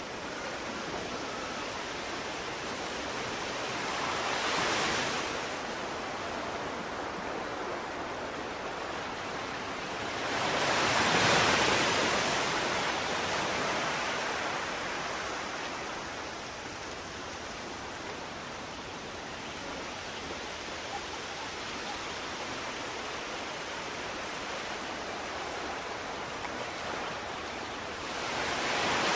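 Sea surf on a sandy beach: a steady hiss of waves washing in, with three waves breaking more loudly, the loudest near the middle.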